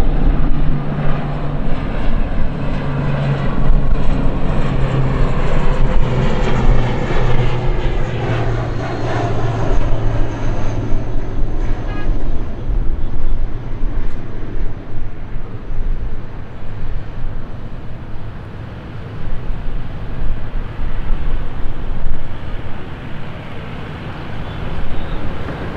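Jet engines of an Airbus A330-300 (Pratt & Whitney PW4000-series turbofans) running as the airliner moves past, a steady low rumble with a higher whine that fades in the second half.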